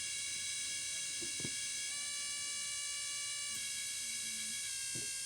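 Chaney Electronics C4722 sound synthesizer kit putting out a steady, buzzy electronic tone rich in overtones, its timbre shifting slightly about two seconds in and again past the middle as its frequency is adjusted.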